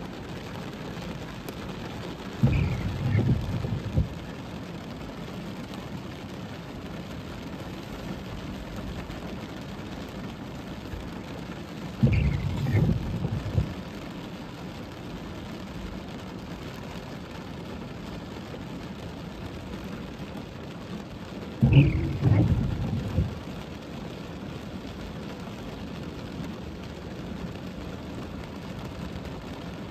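Heavy rain drumming steadily on a car's roof and windscreen, heard from inside the car. Three times, about ten seconds apart, the windscreen wiper sweeps across the glass with a short squeak of the blade and a louder low rumble lasting about a second and a half.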